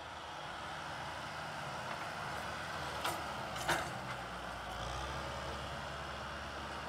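Kubota M6040SU tractor's diesel engine running steadily while plowing. Two sharp knocks sound about half a second apart a little past the middle.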